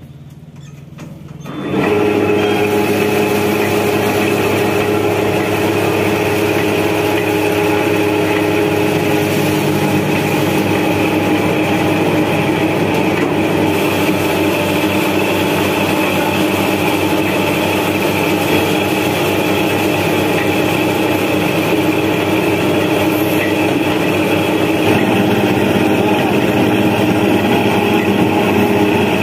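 Rice huller milling paddy: loud, steady machine running with several steady tones, coming in about two seconds in.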